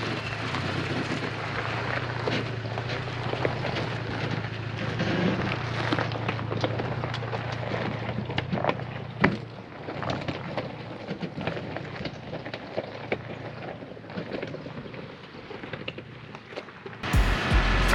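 Toyota Tacoma crawling slowly over a rocky trail: tyres crunching and popping over gravel and stones, with a low steady engine hum that fades about halfway. A loud steady hum with several tones cuts in about a second before the end.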